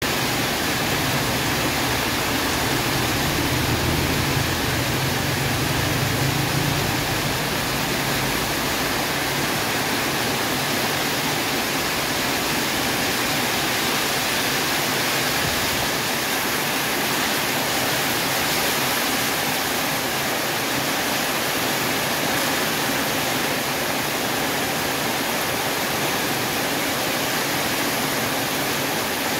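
Heavy rain pouring steadily, a dense even hiss of downpour. A low rumble sits under it for the first seven seconds or so, then fades.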